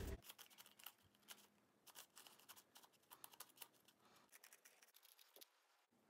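Faint, irregular clicks of a Rubik's cube's layers being turned by hand as it is scrambled.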